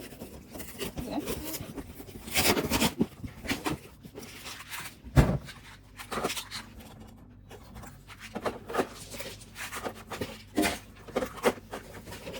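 Irregular knocks, clicks and rustling of things being handled and set down, with one sharp thump about five seconds in.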